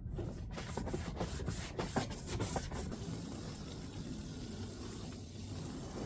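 Clicks and knocks of handling for about three seconds, then a steady hiss of water running from a garden hose into the horses' water trough.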